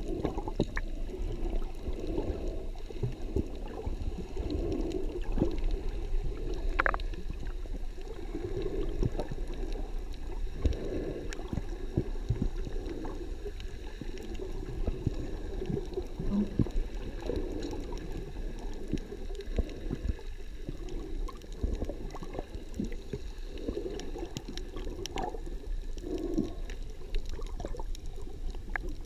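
Muffled water noise heard from just under the sea surface, with low rushing swells every few seconds and scattered small clicks and pops.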